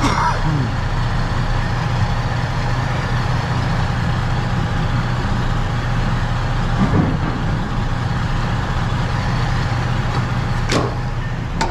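Semi-truck diesel engine idling steadily, with a sharp click about a second before the end.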